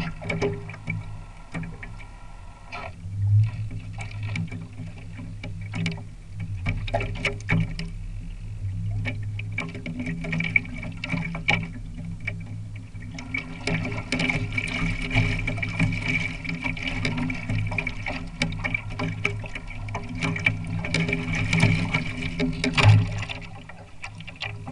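Water splashing and slapping against the hulls of a Mini40 RC trimaran under sail through chop, heard close up from a camera mounted on the boat. There are many small knocks and a steady low hum underneath, and the splashing gets busier about halfway through.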